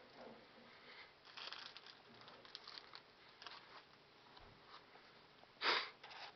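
Wrapping paper rustling and crinkling faintly, in scattered small crackles and light taps, with one louder, brief rustle about five and a half seconds in.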